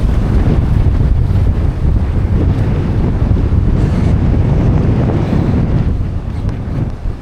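Strong wind buffeting the microphone, a steady low rumble that eases a little near the end.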